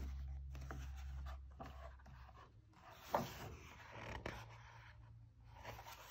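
Pages of a hardcover picture book being handled and turned: soft paper rustling, with one sharper page turn about three seconds in.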